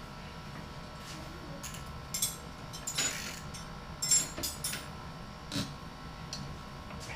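Light metallic clinks and clicks of hand tools and small parts being handled, scattered at irregular intervals, the loudest about three and four seconds in.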